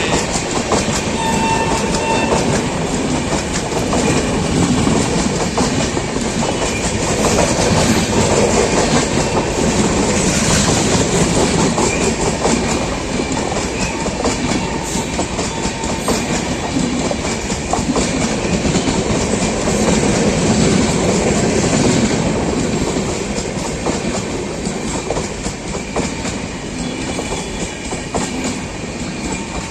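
Express train with LHB coaches running at speed, wheels clattering rhythmically over rail joints under a steady rumble. The last of an electric locomotive's horn sounds for about the first two seconds, and the clatter eases slightly toward the end.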